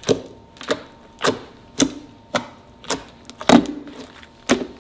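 Clear glue slime being kneaded by hand against a tabletop, a short sharp sound with each press, about twice a second, eight in all; the loudest comes about three and a half seconds in.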